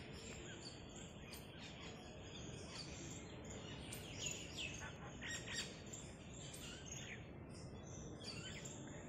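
Small birds chirping and twittering, many quick high calls overlapping, busiest and loudest around the middle, over a steady low background hiss.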